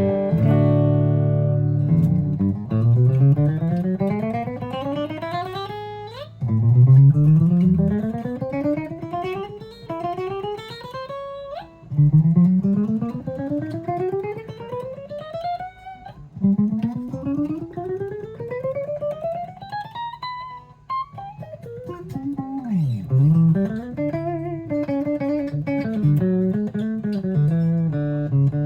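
1981 Gibson Les Paul Custom electric guitar played for a sound check. Four long slides rise steadily from a low note up the neck, each over about four seconds, followed near the end by bent, wavering notes.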